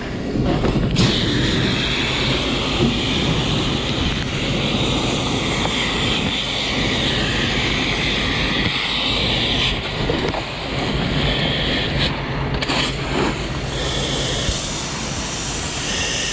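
Fire hose nozzle spraying water onto a hot, foam-covered truck cab: a steady hissing rush that breaks off for short moments a few times in the second half. A low rumble runs underneath.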